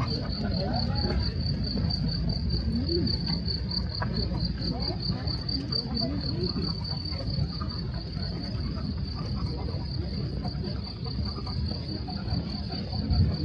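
A cricket chirping in a fast, even run of high pulses that never lets up, over a low outdoor rumble.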